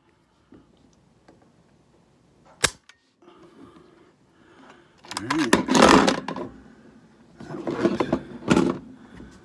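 A single sharp rifle shot from a Mak 90 AK-pattern semi-automatic being test-fired to check that it cycles, about two and a half seconds in. Two longer stretches of louder clattering and knocking follow, around the middle and again near the end.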